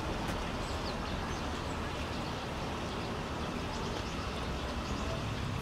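Steady outdoor background noise, a low hum, with faint high bird chirps now and then.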